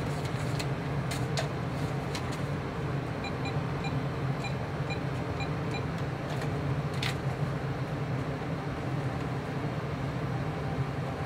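Office fax machine being worked by hand: a run of short key beeps about three seconds in, with a few sharp clicks from paper and buttons, over a steady low hum.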